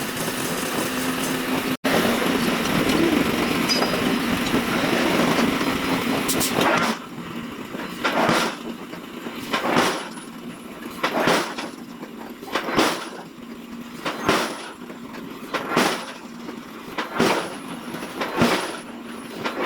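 Forging hammer striking a steel block in a forge shop. It opens with about seven seconds of continuous machine noise, then gives regular single blows, about one every one and a half seconds, each ringing briefly.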